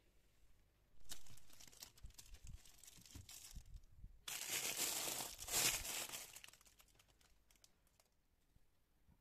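Plastic food packaging crinkling as it is handled and pushed onto a refrigerator shelf. It comes in irregular bursts and is loudest for about two seconds from four seconds in, then dies away.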